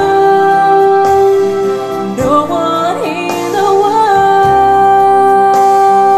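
Recorded music with long held notes, played back through a vacuum-tube amplifier and loudspeakers.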